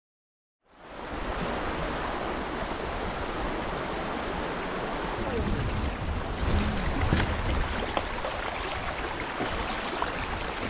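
Steady rushing of river water, with light splashing, starting about a second in.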